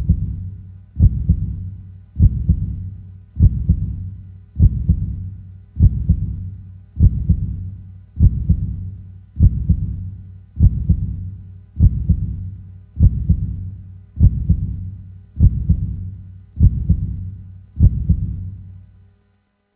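Deep, doubled thumps in a slow, steady rhythm, about one every 1.2 seconds, stopping shortly before the end.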